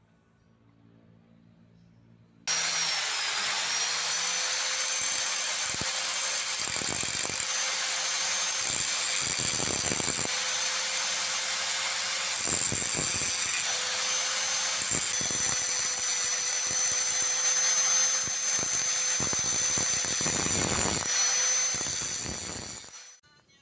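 Electric drill running at a steady speed with a high whine and a rasping cutting noise, starting abruptly about two and a half seconds in and dying away near the end.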